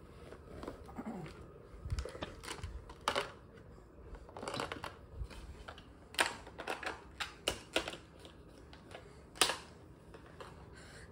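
Irregular light clicks and taps, a dozen or so scattered unevenly, the sharpest about three, six and nine and a half seconds in.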